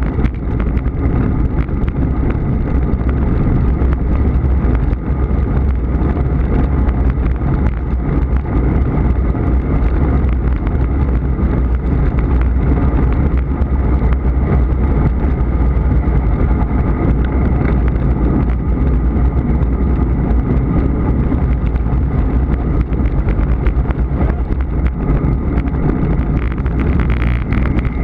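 Steady wind rushing over the microphone with road and tyre noise from a road bike riding at speed, with a faint steady whine running underneath.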